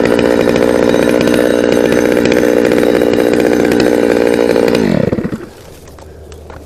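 Chainsaw running at full throttle, held steady for about five seconds, then winding down quickly as the throttle is released, leaving a low hum.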